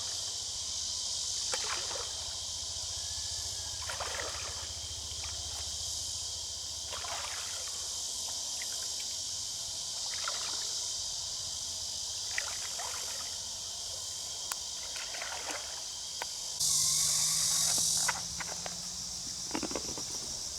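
Water sloshing and swishing every couple of seconds, like wading or paddling strokes, over a steady high hiss, with a louder burst of hiss lasting about a second and a half near the end.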